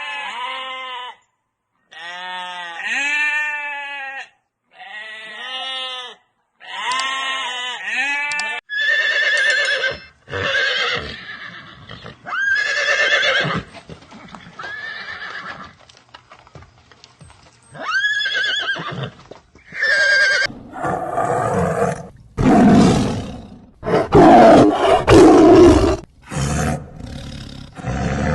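A string of different animal calls. First come repeated quavering goat bleats for about eight seconds, then a run of shorter pitched calls, then loud, rough roars filling the last several seconds.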